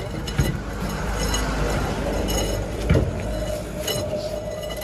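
Steel hand tools clinking and knocking against a truck's wheel hub and the ground as a mechanic works the wheel nuts, with two sharper metal knocks, about half a second in and near three seconds in. A steady low hum runs underneath, joined by a steady tone from about halfway.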